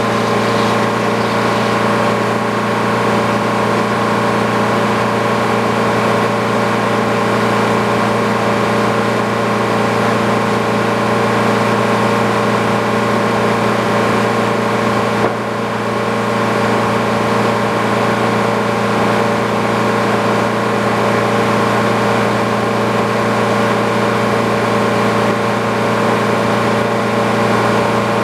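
Sawmill engine running steadily at an even speed, with a brief dip in level about halfway through.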